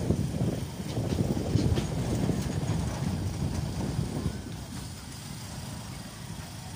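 Low, uneven rumble of a moving vehicle, with wind buffeting the microphone. It eases off slightly in the second half.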